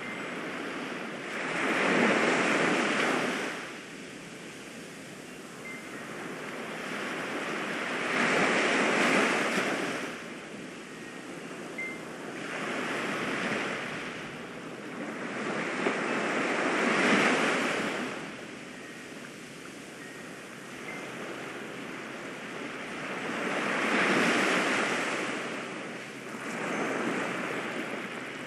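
Ocean surf: waves washing in and drawing back, the rush swelling and fading every few seconds.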